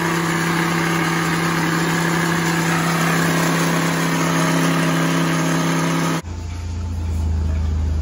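Countertop blender motor running at a steady speed, a loud whirring hum that cuts off suddenly about six seconds in. A lower steady hum takes over for the last couple of seconds.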